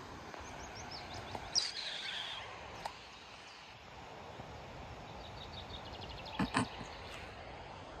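Outdoor ambience with songbirds singing: a descending run of chirps a second or two in and a quick even trill about five seconds in. Two sharp knocks sound close together about six and a half seconds in.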